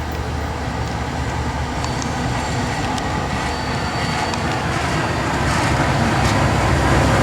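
Freight train with diesel locomotives running by, a steady rumble that grows louder toward the end, with a few short high squeals and clicks.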